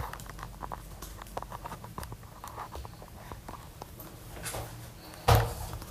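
Irregular small clicks and knocks, with one louder thump about five seconds in.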